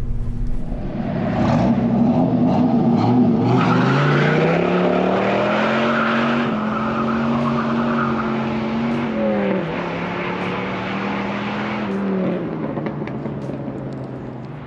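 The 2004 Dodge Ram SRT-10's 8.3-litre Viper V10 revs up hard as the truck launches with its rear tyres spinning and squealing. The engine note climbs, holds, drops at a gear change about nine seconds in, and fades as the truck pulls away.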